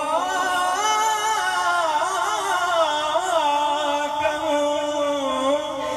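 A young man's solo voice singing a devotional manqbat, drawing out one long, ornamented line without words that bends and wavers in pitch.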